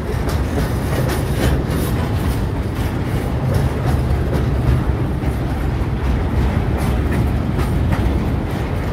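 Freight train boxcars and hopper cars rolling past, a steady low rumble of steel wheels on the rails with irregular clicks and clacks from the wheels.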